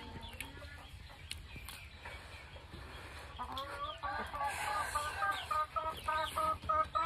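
A hen clucking: a fast run of short, repeated calls, about four a second, starting about three and a half seconds in and growing louder.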